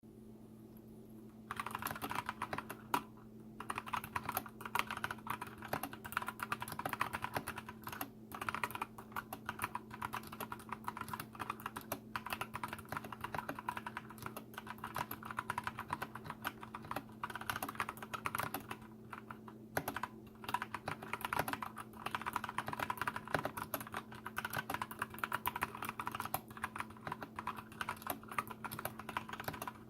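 Fast continuous typing on a Massdrop x MiTo Lazer ALT mechanical keyboard with lubed Kailh BOX heavy Burnt Orange switches, starting about a second and a half in, with a few short pauses. A steady low hum runs underneath.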